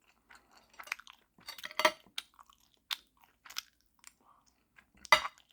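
A person chewing food close to the microphone: irregular short mouth clicks and crunches, loudest about two seconds in and again near the end.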